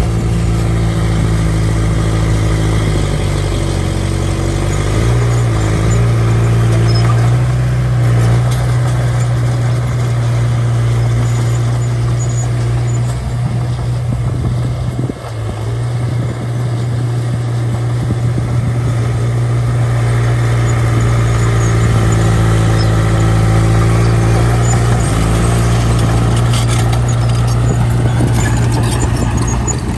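Small bulldozer's diesel engine running steadily while pushing soil, its pitch shifting a few times, with a brief dip in loudness about halfway.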